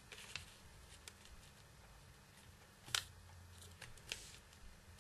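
Faint rustling and soft crackles of an origami paper square being folded and creased by hand, with one sharper crackle about three seconds in.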